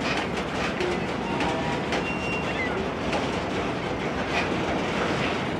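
GE C44-9W (Dash 9) diesel-electric locomotives running as a loaded grain train moves slowly, with a steady mix of engine and wheel-on-rail noise.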